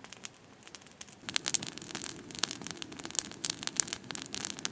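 Close, irregular rustling and crinkling with sharp crackles, sparse at first and growing dense about a second in.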